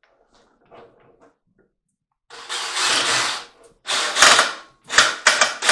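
Four loud bursts of rapid mechanical rattling over the last three and a half seconds, the last one cut off abruptly.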